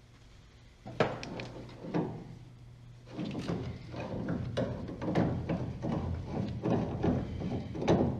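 Metal tools and car parts knocking and clattering as they are handled: two separate knocks, then a run of quicker clatter from about three seconds in, over a steady low hum.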